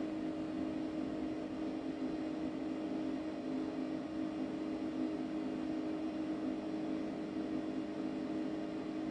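Okuma LB15 CNC lathe running with a steady machine hum, several even tones holding without change; no cutting or impacts are heard.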